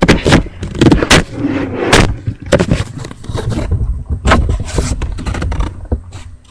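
Horror film soundtrack played on a TV and picked up by a webcam microphone: a loud, dense run of bangs, crashes and scraping.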